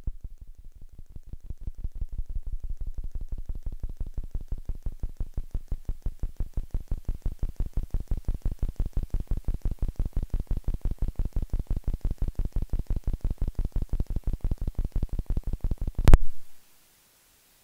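Rapid, even electronic pulsing, low and buzzy, builds up over the first two seconds and then cuts off with a thump about 16 seconds in. It is an audio fault in the recording that drowns out the speech.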